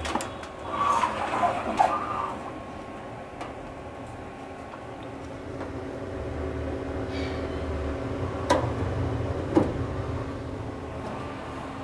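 Handling noises, with rustling and knocks in the first two seconds and two sharp clicks about two-thirds of the way through, over a steady low hum.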